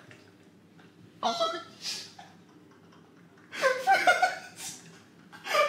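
A man laughing in short bursts: a brief laugh about a second in, then a longer run of broken laughs from about three and a half seconds in.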